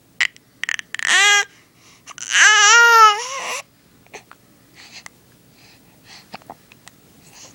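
Baby babbling: a short high-pitched squeal about a second in, then a longer one that rises and wavers, followed by faint small mouth and breath sounds.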